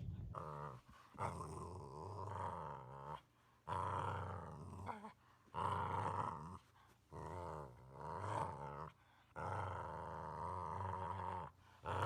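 Boxer dog snoring in its sleep: a rattling snore on the breaths, one after another roughly every one to two seconds, with short quiet gaps between.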